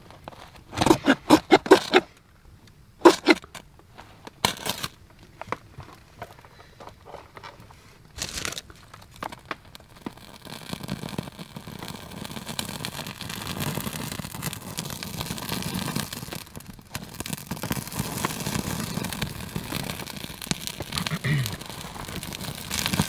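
Sparks struck from a ferro rod onto birch bark in quick scraping strokes, a burst of them near the start and a few single strokes after. About ten seconds in the bark catches, and a steady crackling hiss of burning birch bark builds.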